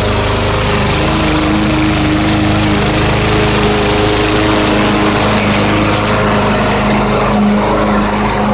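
Gas lawn mower engine running steadily while mowing, its pitch shifting slightly now and then.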